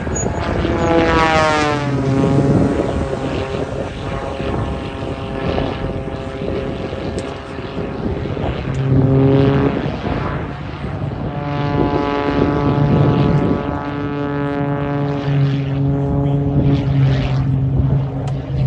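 Aerobatic propeller plane (an MXS-RH monoplane) flying a display, its engine and propeller giving a loud buzzing drone. About a second in the pitch drops sharply, then the drone dips and comes back from about nine seconds in, holding a fairly steady pitch with small rises and falls.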